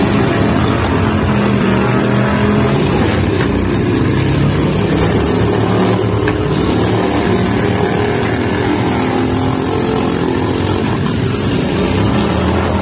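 Several stock lawn tractors' small engines running at once, a steady, loud drone.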